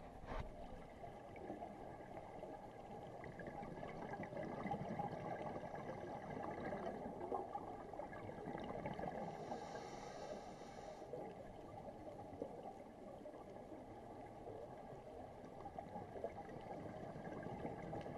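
Muffled underwater noise picked up by a camera in its waterproof housing: a steady, low rush of water, with a brief higher hiss about halfway through.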